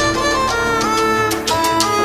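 Electronic dance music demo loop with a violin-like string melody over steady percussion.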